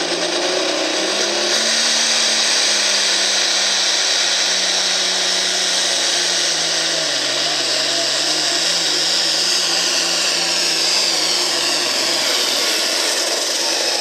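Light pro stock pulling tractor's turbocharged diesel engine running flat out under the load of a pulling sled, loud and steady with a high turbo whistle. About halfway through its pitch drops and begins to waver, and the whistle falls near the end as the sled's weight slows the tractor.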